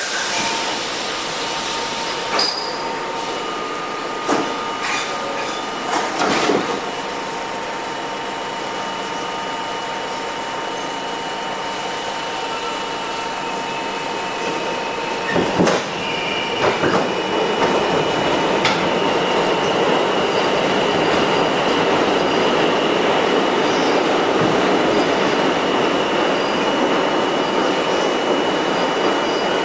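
Inside a Budd-built R32 New York subway car running between stations. There is a steady rumble with sharp knocks and clacks from the wheels over rail joints, and a steady high-pitched whine. It grows louder from about halfway through.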